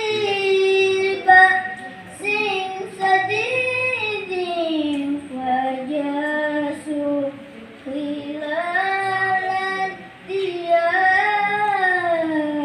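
A boy qori reciting the Quran in the melodic tilawah style: long held notes that glide and turn in pitch, in phrases of a few seconds broken by short pauses for breath.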